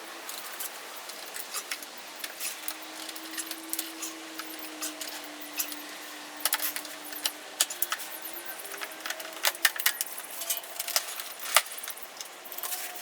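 Irregular metallic clicks and clinks of hand tools and loose bolts being handled while a fender is taken off, coming in quick clusters in the second half.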